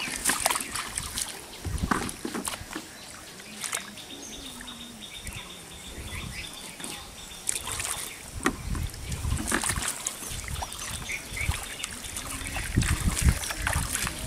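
Bare feet wading through shallow floodwater in grass, with irregular splashes and trickling water; the splashes and thuds are heaviest about eight to ten seconds in and again near the end.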